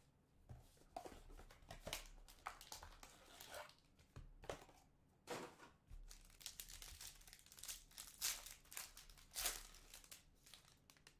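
Foil trading-card pack wrapper crinkling and tearing as it is opened by hand, in faint, irregular sharp rustles.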